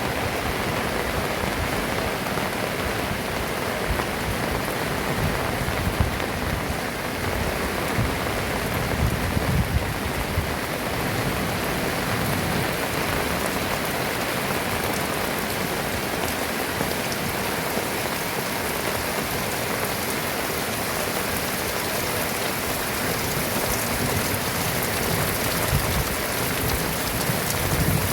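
Heavy rain falling steadily, a dense even hiss of drops hitting surfaces, with a few brief low knocks here and there.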